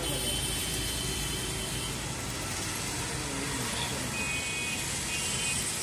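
Steady background noise with no distinct event, and faint thin high tones near the end.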